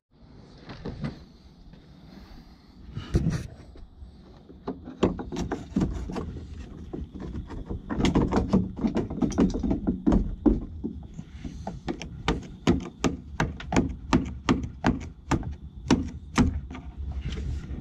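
Hammer knocking out old, broken-up cement: sharp separate knocks, a few scattered at first, then a steady run of about two a second from the middle on.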